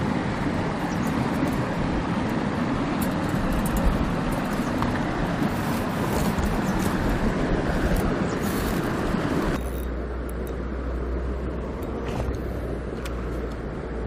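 Footsteps and brushing through dry grass and over loose stones, with scattered crackles and ticks over a steady rushing noise. About ten seconds in it drops suddenly to a quieter, steady low rumble.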